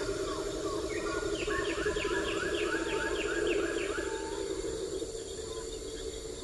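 Forest ambience with bird-like calls over a steady low, fluttering hum. About a second and a half in comes a rapid run of repeated chirping calls, about five a second, lasting two seconds.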